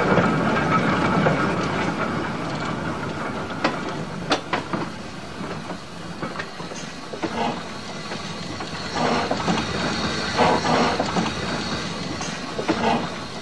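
Replica of Stephenson's Rocket steam locomotive running on the rails. A dense hiss is loudest at the start and fades over the first few seconds, then comes a scatter of irregular knocks and clanks.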